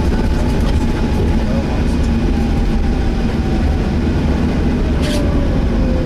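Volvo B7TL double-decker bus heard from inside while under way: its six-cylinder diesel engine and the road noise make a steady low rumble, with a faint whine slowly falling in pitch and a few light rattles.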